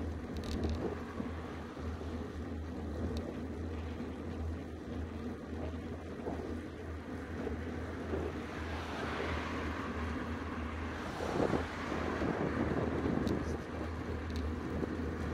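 Wind buffeting a handlebar-mounted camera's microphone on a moving road bike, with a steady low rumble of tyres on asphalt. A louder rush swells a little past the middle and then eases.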